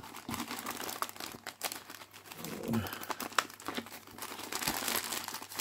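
Black plastic postal mailer bag crinkling and crackling as it is handled and torn open, in a run of short, irregular crackles.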